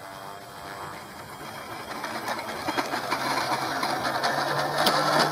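Electric model-airplane power system, a D-Power 42-6 brushless motor turning the propeller, as the throttle is opened slowly for the takeoff run. The whirring grows steadily louder and rises slightly in pitch. There is a single click about five seconds in.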